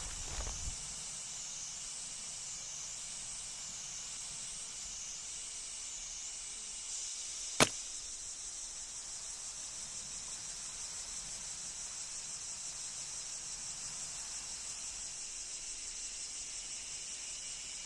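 Insects droning in a steady high chorus that pulses in slow waves for the first few seconds. About seven and a half seconds in, there is a single sharp crack, much louder than the drone.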